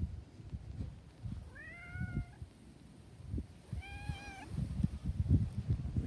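Orange tabby cat meowing twice, two short arching calls about two seconds apart, over low rumbling thumps.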